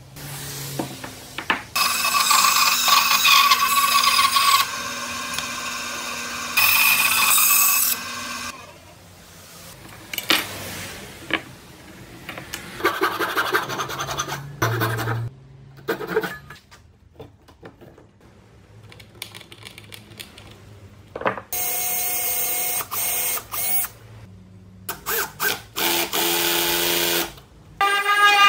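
Woodworking shop sounds in short edited pieces. A power tool runs steadily for several seconds, a hand saw rasps through pine in strokes near the middle, and a random orbit sander runs on a wood block in short bursts near the end.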